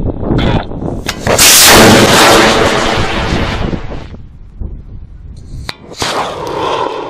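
High-power model rocket motor igniting at liftoff: a sudden loud blast of exhaust a little over a second in that fades over about three seconds as the rocket climbs. About four and a half seconds later the launch is heard again from a camera at the pad, starting with a sharp crack followed by another loud rush.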